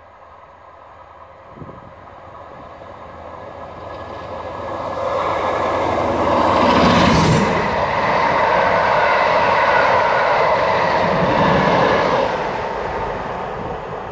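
Passenger train hauled by Class 47 diesel locomotives, with their Sulzer twelve-cylinder engines, passing at speed. The sound builds as the train approaches, is loudest for about six seconds while the locomotive and coaches go by, then fades as the train draws away.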